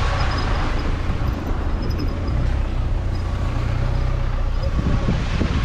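Off-road SUV's engine running as it drives slowly over a muddy, stony dirt track, a steady low rumble that gets a little louder about halfway through.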